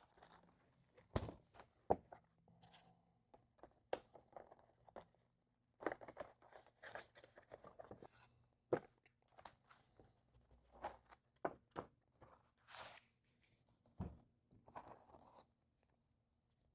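A keyboard's packaging being opened and handled by hand, with tearing, rustling and a scatter of short knocks and taps that come and go.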